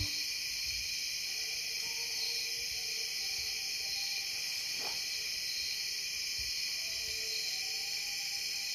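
Steady night chorus of crickets and katydids trilling, with faint, drawn-out bays of distant coonhounds on a track heard twice.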